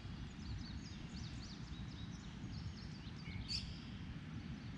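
Outdoor ambience: a steady low rumble with small birds chirping again and again, one chirp louder about three and a half seconds in.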